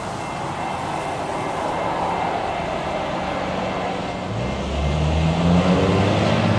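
Road traffic passing, with one vehicle's engine climbing in pitch as it speeds up about four seconds in, getting louder.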